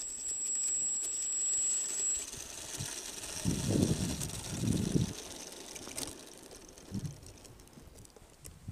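A steady high whine with hiss that stops about two seconds in, then two heavy crunching footsteps on snow-covered ice and a fainter one later.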